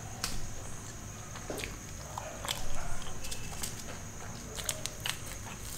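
Close-miked chewing of a mouthful of cheesy pizza, with wet mouth smacks and short sharp clicks, one louder smack about halfway through. Near the end a small paper seasoning sachet is handled.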